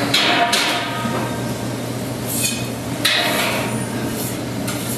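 A few sharp knocks, about one every second or so, over a steady low hum.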